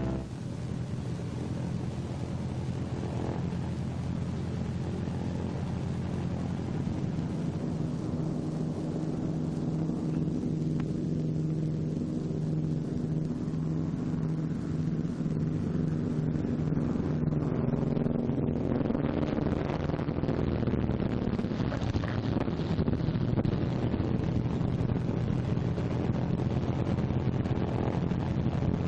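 Martin B-26 Marauder's twin radial piston engines droning steadily. The pitch slides down about two-thirds of the way through, and the sound grows a little louder toward the end.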